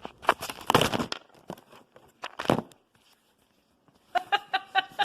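Thin plastic shrink sleeve crinkling and crackling as it is handled, in short bursts. Near the end there is a quick run of pitched, chattering pulses.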